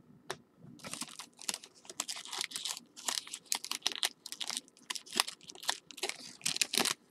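Rapid, irregular crinkling and rustling from handling trading cards and their wrappers, starting about a second in.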